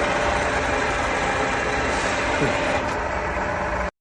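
MRF FU-145 universal milling machine running under power: a steady motor and gearbox hum with several constant tones, cutting off abruptly just before the end.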